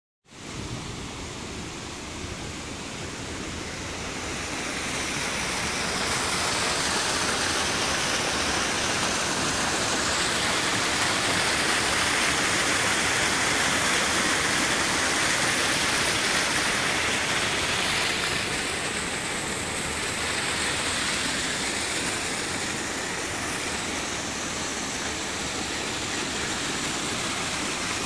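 Waterfall on a rocky creek, a steady rush of falling water that grows louder a few seconds in.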